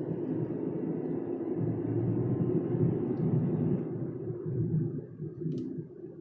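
Car driving heard from inside the cabin: a steady low rumble of engine and tyres that eases about four seconds in, with a brief click near the end.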